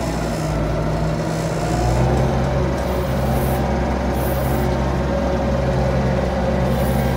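Farm tractor engine running steadily under way; its note drops and firms up about two seconds in, then holds.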